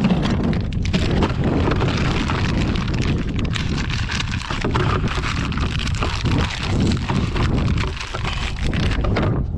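Plastic bag of frozen squid bait being handled, snipped and cut open: a dense crinkling and crackling of plastic over a heavy low rumble of handling noise on the microphone.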